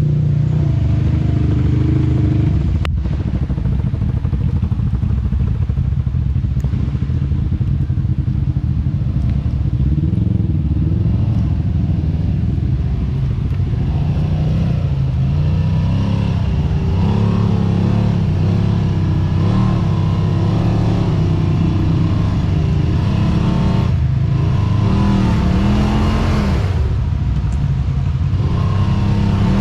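Off-road vehicle engine running, its pitch rising and falling repeatedly as it is revved and eased off, more so in the second half.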